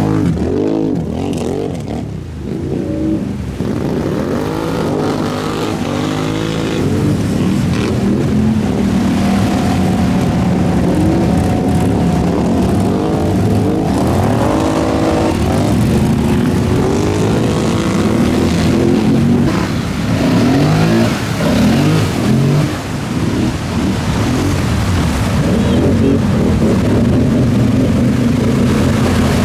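Off-road vehicle engines revving, the pitch climbing and dropping again and again as the throttle is worked.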